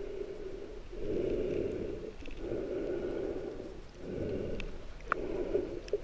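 Muffled underwater noise through a waterproof camera housing: water rushing in surges of about a second each, with a few sharp clicks near the end.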